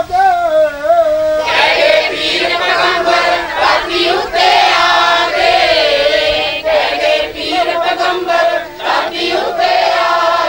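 Punjabi devotional song: a single voice holds a wavering note, then about a second and a half in a chorus of voices comes in singing together with the accompaniment.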